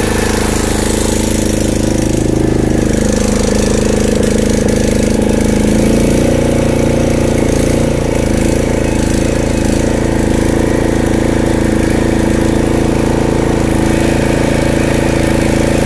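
Small single-cylinder Briggs & Stratton engine on an old Snapper rear-engine riding mower, running steadily after starting. Its note shifts about two seconds in and again about six seconds in.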